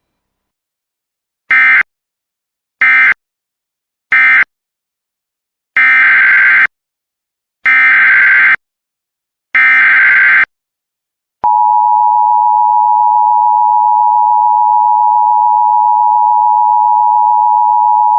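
Emergency Alert System signalling. Three short warbling digital data bursts, which are the end-of-message code for the previous alert, are followed by three longer data bursts, which are the header of the next alert. Then comes a steady, loud attention tone with two close pitches just under 1 kHz, starting about 11.5 seconds in.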